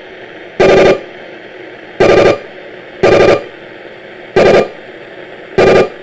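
Panasonic portable radio tuned to the bottom of the AM band, its speaker giving a short loud buzz each time a button is pressed on an infrared TV remote: five buzzes about a second apart over steady AM static. The buzz is the radio picking up the remote's signal, the sign that the remote is working.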